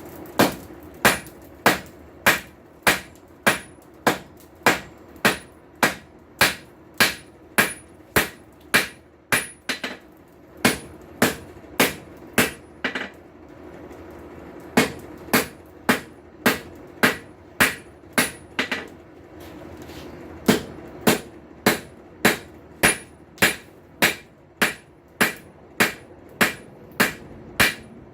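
Hand hammer striking hot steel on an anvil in a steady rhythm, about one or two blows a second, while forging a tong blank. The blows come in three runs with two brief pauses, about halfway through and again about two-thirds in, and a steady low hum runs underneath.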